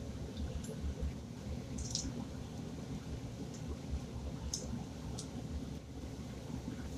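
Vegetables frying quietly in a wok under a steady low rumble, with a few short, light clicks and scrapes as the wooden spatula and a spoon work the pan.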